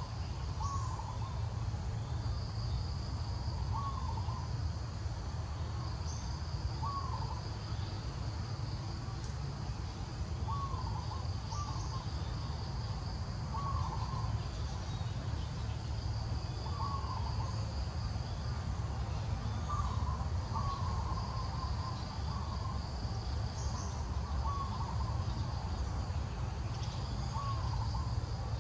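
Outdoor daytime insect chorus: a high, steady insect buzz that breaks off briefly every few seconds. Over it a bird repeats a short call every second or two, above a steady low rumble.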